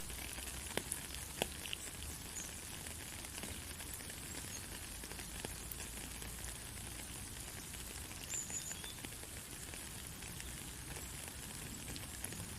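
Steady rain falling, a fine even hiss with scattered sharp drop ticks, and a brief high chirp about eight seconds in.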